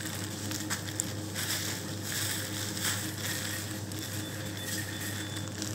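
Thin plastic produce bags of fresh herbs crinkling and rustling as they are handled, over a steady low hum.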